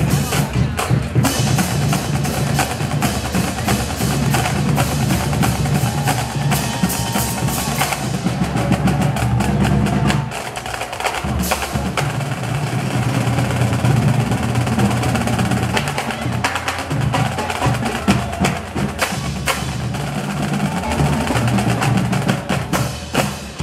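Marching drumline of snare drums, tenor drums and bass drum playing a fast, dense cadence. The low drums drop out briefly about ten seconds in, then come back.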